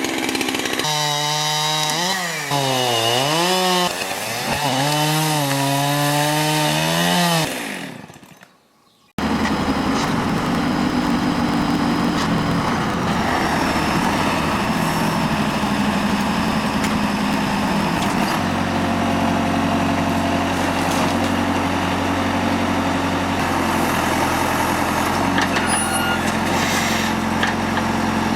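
A chainsaw revving up and down, its pitch swooping repeatedly. After a brief break, a tractor engine runs steadily, with a deeper note coming in about halfway through.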